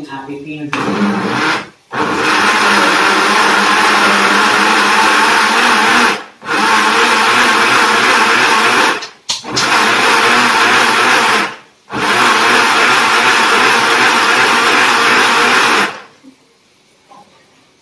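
Shake 'n Take personal bottle blender running, blending cucumber pieces with water, in about five runs of a few seconds each with short breaks between them as the jar is pressed down and let up. It stops about 16 seconds in.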